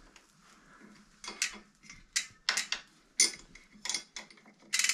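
Scattered sharp metallic clicks and clinks from bicycle chain and drivetrain parts being worked on by hand. Near the end a rapid, even ratcheting begins.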